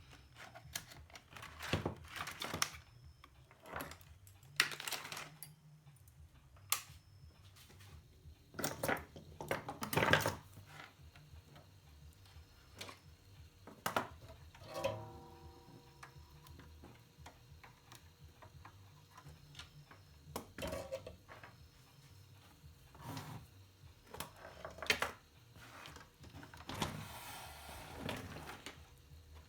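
Scattered clicks, taps and light clatter of hand tools and metal parts as an amplifier is taken apart on the bench, with a brief ringing tone about halfway through.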